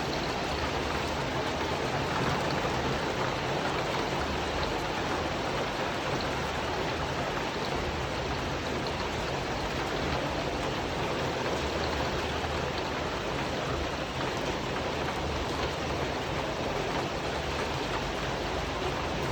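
Steady rain falling on a tin roof: an even, unbroken hiss of water with scattered sharp drop ticks.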